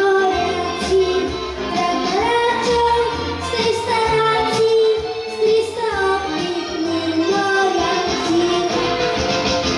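A child singing a song over an instrumental backing with a steady beat.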